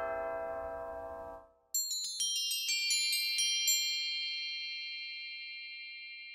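Sampled tubular bells from ProjectSAM's True Strike library ring out and are cut off about a second and a half in. Then sampled crotales play a quick run of high, bell-like strikes lasting about two seconds, and their notes ring on, slowly fading.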